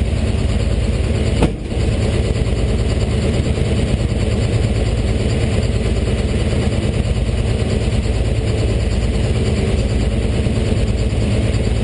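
First-generation Cummins 5.9-litre inline-six turbo diesel with a P-pump idling steadily, heard from inside the cab. A single sharp knock sounds about a second and a half in.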